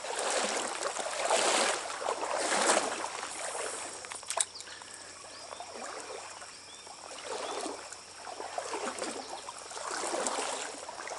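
Stream water splashing and swishing in repeated surges about every second or so, as of someone wading through it, with a sharp click about four seconds in.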